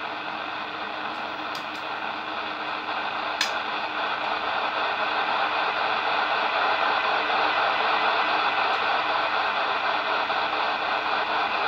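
Super Jopix 2000 CB transceiver's speaker hissing with receiver noise while it takes a weak test signal near the limit of its sensitivity. The hiss grows louder over the first several seconds and then holds steady.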